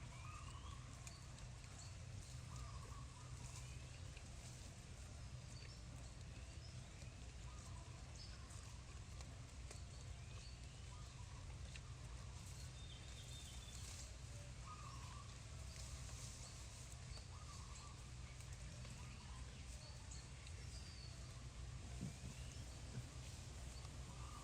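Faint outdoor ambience: small birds give short rising chirps every second or so, with a recurring lower call every few seconds, over a steady low rumble.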